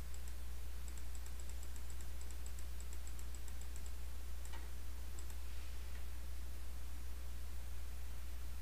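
Steady low electrical hum from the recording setup, with faint rapid computer clicks, about five a second, in the first few seconds and a few more around the middle.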